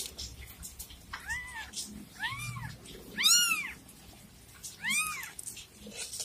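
Newborn kittens mewing: four short, high-pitched mews, each rising and then falling in pitch, the loudest about three seconds in.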